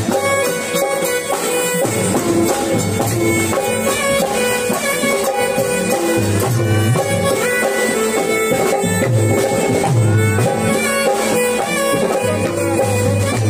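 Live devotional raas kirtan music: an electronic keyboard carrying the melody over drums, with a deep beat that comes back every second or so.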